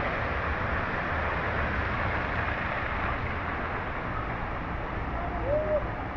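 Steady rushing noise with a low hum beneath, and a brief high chirp about five and a half seconds in.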